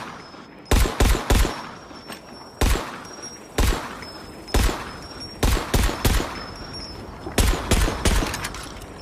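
M13 military pistol firing about a dozen shots at an uneven pace, some single and some in quick runs of two or three, each shot followed by a short echoing tail.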